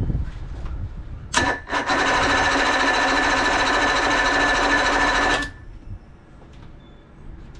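Electric starter cranking a 1976 Johnson 135 hp two-stroke outboard: a short blip of the starter, then about three and a half seconds of steady cranking that cuts off suddenly, with the engine not firing.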